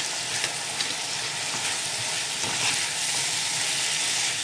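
Sliced onions and green bell peppers sautéing in soy sauce, vinegar and tomato sauce in a nonstick frying pan: a steady hissing sizzle, with a few faint ticks.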